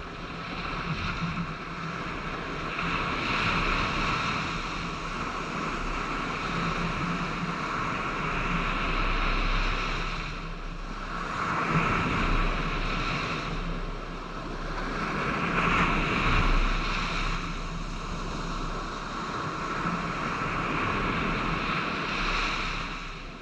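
Surf washing on a sandy beach, swelling and falling about every four to five seconds, with wind noise on the microphone.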